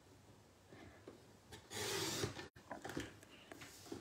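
Paper trimmer's blade slid along its rail, cutting a narrow strip off a cardstock panel: one scraping slide of just under a second about halfway through that stops suddenly, with a few faint paper-handling taps around it.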